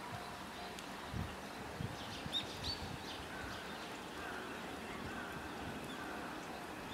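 Small birds chirping in short calls, over a quiet outdoor background with a faint tone repeating about twice a second.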